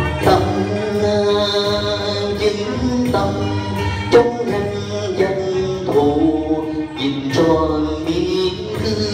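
Vietnamese traditional opera (cải lương) music: a singer's drawn-out, gliding vocal line over instrumental accompaniment, marked by several sharp percussion strikes.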